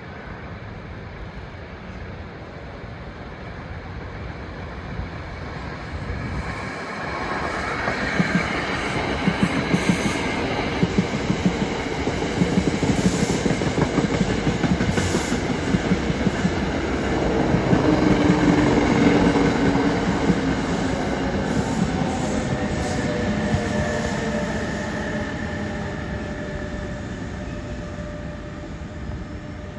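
Passenger train running by on the rails, growing louder to a peak about two-thirds of the way in and then fading. Rapid clicks of wheels over the rail joints, with faint wheel squeal.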